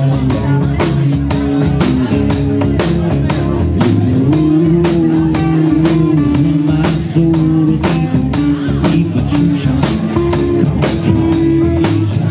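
A live rock band playing: a drum kit keeps a steady beat under electric and acoustic guitars holding sustained chords.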